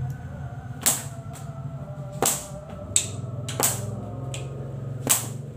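Whip (pecut) cracking: five loud, sharp cracks about a second apart, irregularly spaced, with a couple of fainter snaps between them.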